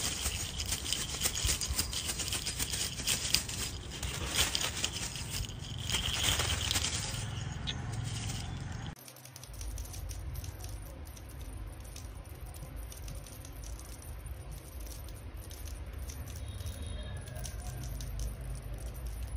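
Rapid rattling and jingling, like a small rattle or bell shaken, for about the first half. It stops suddenly, leaving a quieter low hum.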